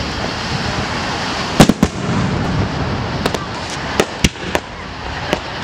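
Aerial firework shells bursting at a public display: a string of sharp bangs, two close together under two seconds in and a cluster around four seconds in, over a steady rushing background.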